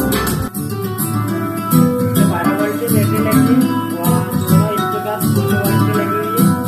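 Guitar music played back over a speaker box with two 8-inch speakers, driven by a 2SC5200/2SA1943 amplifier board. About half a second in the level dips briefly, and after that the deepest bass drops away.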